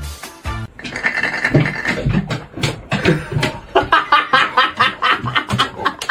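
Background music with a bass line, cutting off about a second in. It is followed by a person laughing in quick repeated bursts that grow faster and more regular in the second half.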